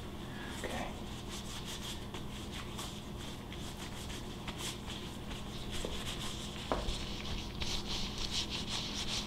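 Faint rubbing and rustling of gloved hands handling small engine parts, with a few light clicks, the rustling growing busier near the end, over a steady low hum.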